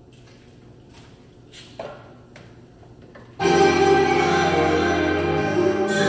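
Background music: a quiet gap with a few faint clicks, then a new song starts suddenly about three and a half seconds in with sustained keyboard chords.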